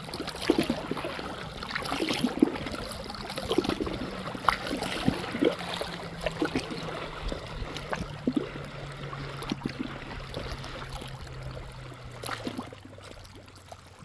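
River water lapping and trickling at the bank, with many small splashes and clicks. Under it runs a steady distant engine hum that slowly drops in pitch.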